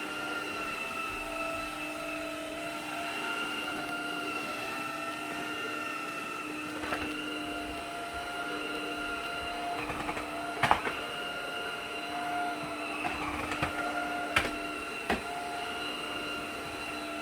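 Electrolux Ultimate Home 700 cordless stick vacuum running with a steady whine. A few sharp clicks and knocks cut in, the loudest about ten and a half seconds in.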